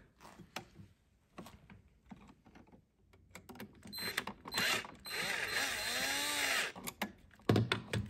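Cordless drill-driver tightening a terminal screw on a wall switch: two short spurts, then a steady run of about a second and a half whose pitch rises and falls, among light clicks from handling the switch and wires.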